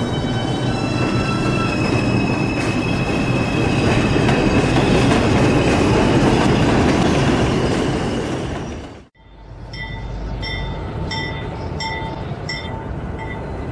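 Subway train running on the track, with a high steady whine over the wheel and motor noise. About nine seconds in, the sound cuts off abruptly and a quieter train sound follows, with a regular ticking about twice a second.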